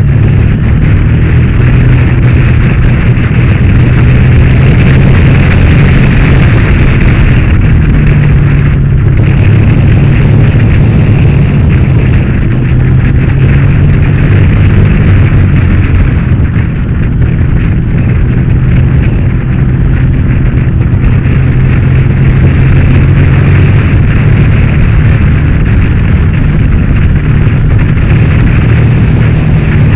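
Motorcycle engine running at a steady cruising speed with loud wind rush over the on-board microphone, its pitch shifting only slightly.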